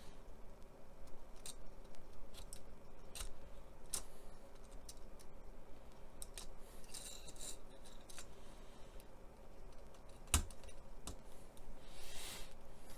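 Small sharp clicks and snips of a plastic model kit's parts being cut from the sprue and handled, with one louder click about ten seconds in and brief scratchy scraping twice.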